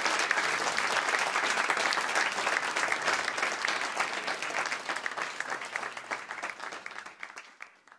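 Audience applauding, a dense patter of many hands clapping that thins and fades away over the last few seconds before cutting off.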